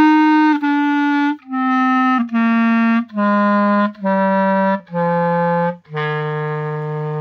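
Backun Beta wooden clarinet playing a slow descending scale: eight separate notes, each stepping down in pitch, the last one held longest.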